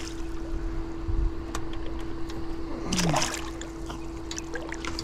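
Small knocks and rustles of handling in a small fishing boat, over a steady hum.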